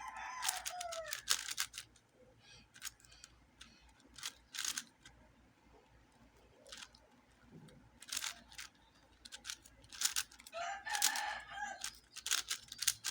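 A Shengshou Legend 4x4 speed cube being turned by hand, with irregular plastic clicks throughout. A rooster crows twice: once at the start and again about eleven seconds in.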